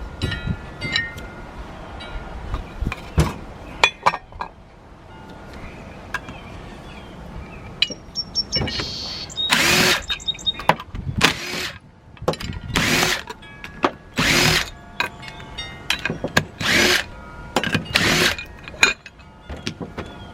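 A power tool run in six short bursts over the second half, each half a second to a second long, backing out fasteners on a Nathan K5LA locomotive air horn. Before the bursts, light metal clicks and clinks of horn parts being handled.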